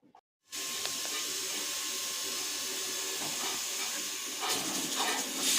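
Steam hissing steadily from a pressure cooker of simmering khesari greens, starting abruptly about half a second in.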